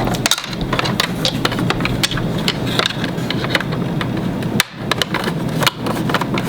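Plastic toy pieces being handled: a run of small clicks and taps, with a steady low hum behind.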